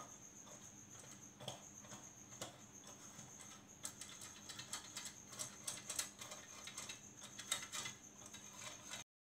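Faint scratching and light tapping as oil is brushed into the cups of a metal cupcake pan, busiest in the second half.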